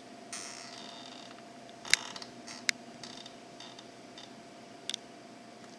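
Small handling noises in a quiet room: a short rustle, then scattered sharp clicks and taps, the loudest about two seconds in and a quick double click near the end, over a faint steady hum.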